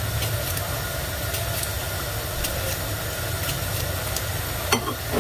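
Faint, crisp ticks of a knife cutting through a cucumber held in the hand, slices dropping into a bowl, over a steady low hum; one sharper click near the end.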